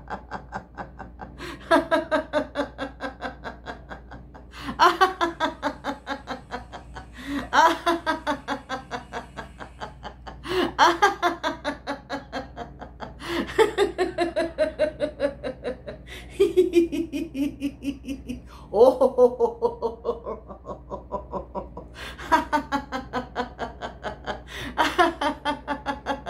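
A woman laughing out loud in a laughter-yoga exercise: about nine bouts of rapid "ha-ha-ha" laughter, each starting high and falling in pitch, with short breaths between them.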